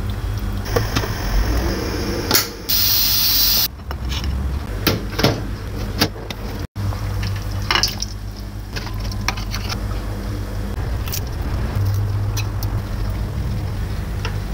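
Ingredients dropped into a steel pot of simmering meat broth, with splashes and knocks against the pot, over a steady low hum. A loud hiss lasts about a second, about three seconds in.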